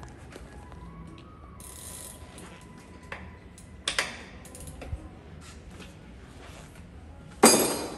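Metal clicking and ratcheting as a bicycle mechanic works a wrench at a bicycle's crank, with a louder clatter near the end.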